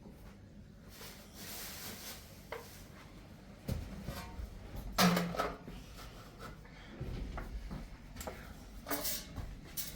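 Scattered knocks and clatter of objects being handled, with some rubbing in between; the loudest knock comes about five seconds in.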